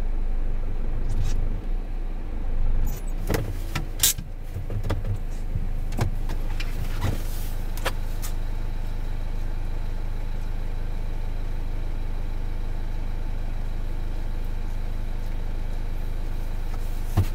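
Renault Master van's diesel engine idling steadily, heard from the cab. In the first half several clunks and knocks come as the driver's door is opened and he climbs out, the loudest about four seconds in; after that only the even idle remains through the open door.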